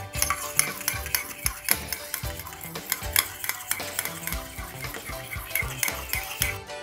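A fork beating egg yolks in a small stainless steel bowl: a quick run of light clinks as the tines strike the metal.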